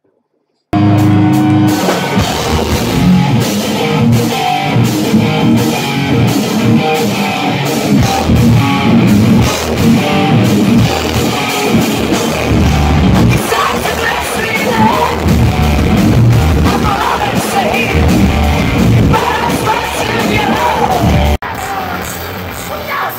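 Thrash metal band playing live, heard from the audience: distorted electric guitars, bass, drums and shouted vocals at full loudness. It starts about a second in and cuts abruptly to a quieter stretch near the end.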